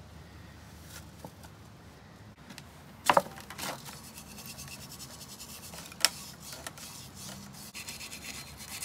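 Hand tool scraping and clinking against a metal sterndrive housing, with a sharp metallic clank about three seconds in and a single click about six seconds in.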